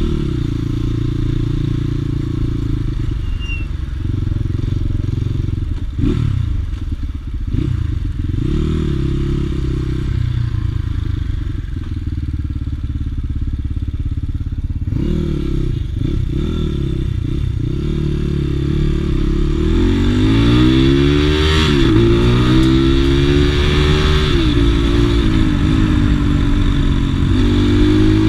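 Crossfire RM 250 motorcycle engine running at a steady low speed, with short throttle blips that rise and fall back. From about two-thirds of the way in it accelerates hard, its pitch climbing and dropping several times as it changes up through the gears.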